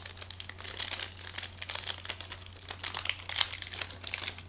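Packaging crinkling and rustling in irregular bursts as it is handled, over a steady low hum.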